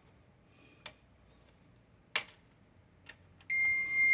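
Rack-mount CyberPower UPS being switched on: a few faint clicks, then one steady high-pitched beep lasting about a second near the end as it powers up.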